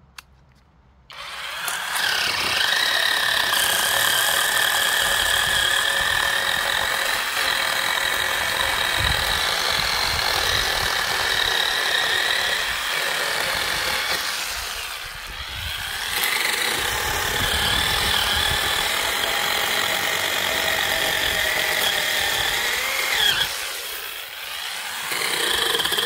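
Small cordless electric chainsaw cutting through a log, its motor and chain whining steadily. It starts about a second in and eases off briefly twice, about halfway through and near the end.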